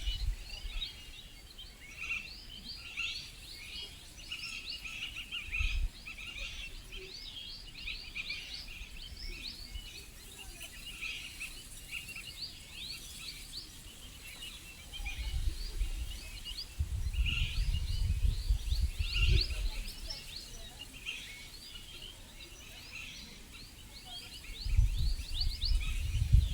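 A forest chorus of many birds chirping, a dense run of short, quick high chirps overlapping one another. Low rumbles come and go twice, the longer one about halfway through.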